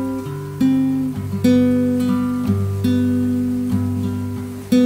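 Background music: acoustic guitar playing slow plucked notes and chords, each note starting sharply and fading before the next, about one or two a second.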